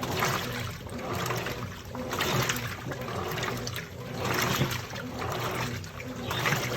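Washing machine running with water in the drum: water sloshing in repeated swells every second or two over a steady low motor hum.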